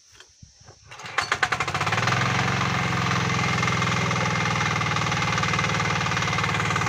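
Mini power tiller's single-cylinder engine being pull-started: it catches about a second in, the firing quickens and grows louder over the next second, then it settles into steady running.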